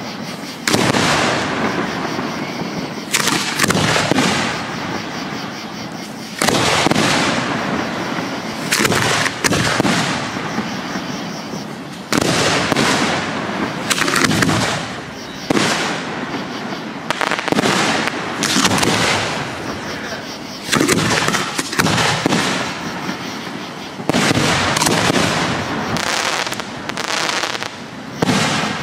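Aerial firework shells bursting overhead one after another, a sharp boom every one to three seconds, each fading away in a long echoing rumble.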